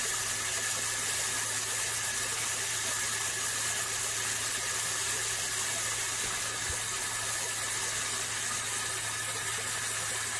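Steady hiss with a low, even hum underneath, unchanging throughout, with no distinct splashes or calls standing out.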